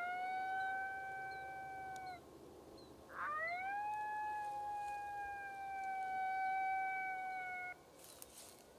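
Coyote howl call, two long lone howls. The first ends about two seconds in. The second rises sharply, then holds a long steady note before cutting off near the end. The howls are sounded to make a moving coyote stop. A brief noise follows.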